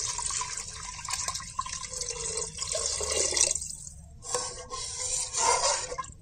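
Water poured from a tumbler into a pressure-cooker pot of thick fried masala, splashing steadily. It breaks off about three and a half seconds in, then more splashing and sloshing follows in the pot.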